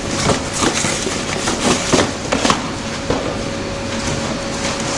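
Cardboard being stuffed into a cardboard baler's chamber: rustling and scraping with irregular knocks, busiest in the first two and a half seconds, over a faint steady hum.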